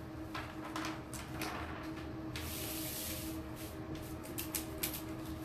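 Plastic carrier sheet of a large decor transfer rustling and sliding across a paper-covered surface: a few swishes, a long hiss about halfway through, then quick crinkling as hands press and smooth it down. A steady low hum runs underneath.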